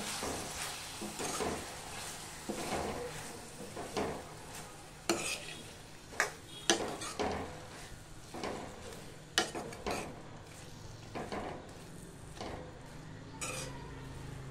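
A steel spoon stirring and scraping chopped ridge gourd and moong dal around a steel kadhai, with irregular clinks and clacks of the spoon against the pan, over a faint sizzle from the hot masala.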